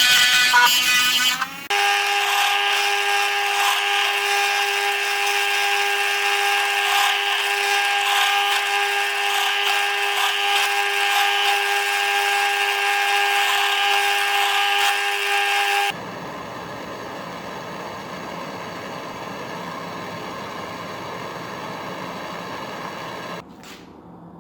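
A small handheld power tool running at a steady speed with an even whine. The sound changes abruptly about two seconds in, and again at about sixteen seconds, when it becomes quieter and rougher.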